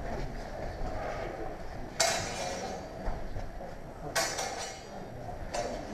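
Steel longsword blades striking each other in a fencing exchange: a sharp metallic clash about two seconds in and another about four seconds in, each ringing briefly, with a fainter clash near the end.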